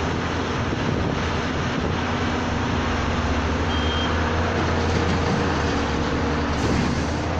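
Large hydraulic excavator's diesel engine running steadily with a deep, even hum, and a brief high beep about four seconds in.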